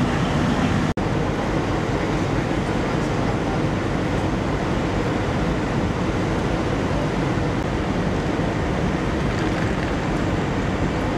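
Steady low engine and traffic rumble of vehicles idling around a crash scene, cut off for an instant about a second in.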